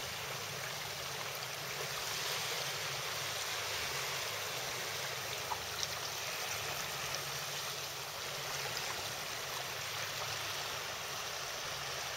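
Steady wash of small waves on the water's edge, an even hiss with no distinct splashes.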